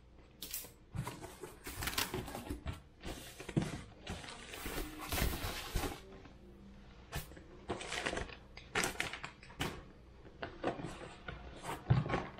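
Cardboard box and plastic wrapping being handled: irregular rustling and crinkling with scattered taps and knocks as parts are unpacked, densest from about two to six seconds in.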